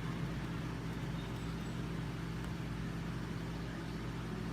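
Steady low hum of background noise, unchanging throughout, with no distinct events.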